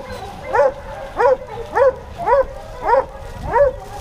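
A deer hound barking in a steady run of six barks, about one every two-thirds of a second, each bark rising and then dropping in pitch.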